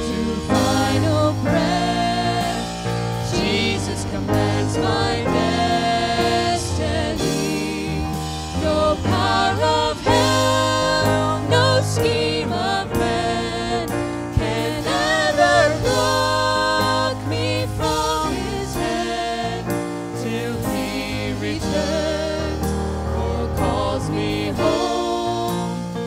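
A woman and a man singing a worship song into microphones, with instrumental accompaniment holding sustained low notes.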